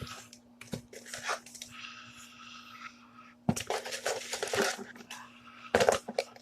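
Handling noises: rustling and crinkling with light clicks and knocks, in irregular bursts, over a steady faint hum.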